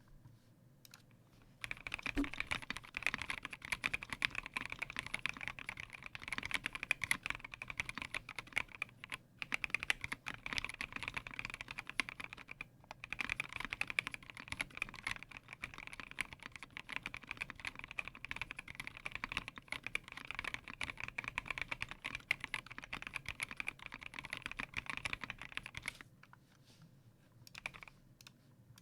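Continuous typing on a custom 60% mechanical keyboard with a polycarbonate plate, lubed and filmed Durock L4 linear switches and OEM-profile keycaps: a dense stream of key clicks. It starts about two seconds in, breaks off briefly twice, and stops a few seconds before the end.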